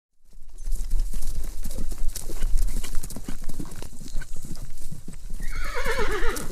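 A horse's hooves clip-clopping in a run of hoof strikes, over a low rumble. Near the end the horse whinnies, a neigh falling in pitch.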